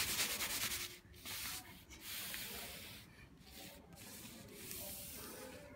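Paper cut-out figures rubbing and rustling as they are slid across a cloth backdrop by hand, in several short quiet bursts.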